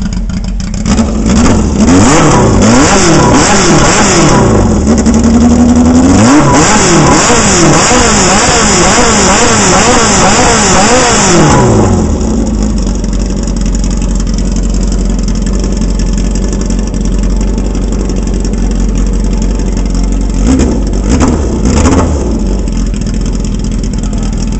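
An engine revving up and down in quick repeated blips of the throttle, then settling to a steady idle, with two more short blips near the end.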